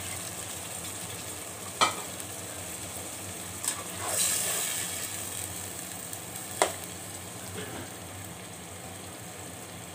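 Chicken tikka masala sizzling in a hot pot as about a cup of water goes into the fried spice paste. It is stirred with a metal spatula that clinks sharply against the pot a few times.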